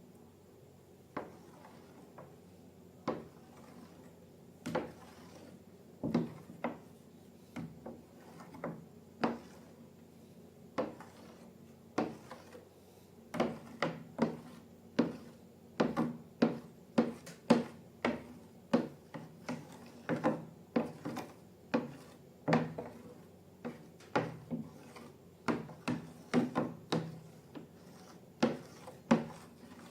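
Irregular sharp taps and knocks of objects being handled on a hard surface, sparse at first and coming more often, up to about two a second, from about halfway through.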